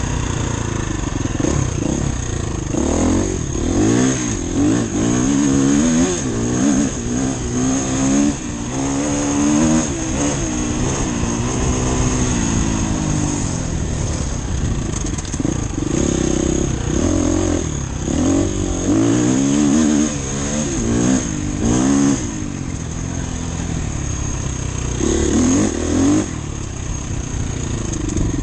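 Off-road dirt bike engine being ridden hard, its pitch rising and falling over and over as the throttle is opened and shut, with a few quieter stretches.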